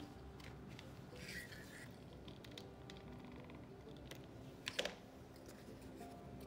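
Quiet handling sounds of a folded paper strip: soft paper rustling and light taps, with a brief sharper clatter about five seconds in.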